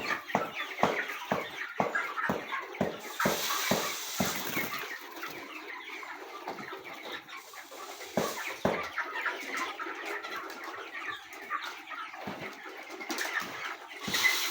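A flock of young broiler chickens chirping and clucking, with frequent sharp taps throughout and a brief rush of noise about three to four seconds in.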